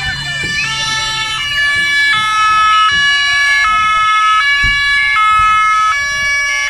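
Police van's two-tone siren, alternating evenly between a high and a low note about every three quarters of a second.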